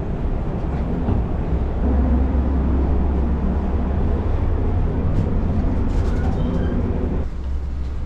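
Steady low rumble of wind and ship's machinery on a ferry's open deck, which drops away sharply about seven seconds in.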